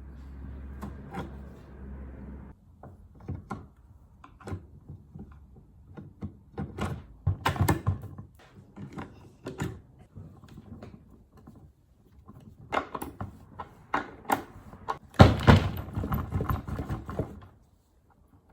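Irregular knocks, clicks and clatter of parts and tools being handled while an electric skateboard is taken apart, with the loudest run of knocks about fifteen seconds in. A steady low hum runs under the first couple of seconds.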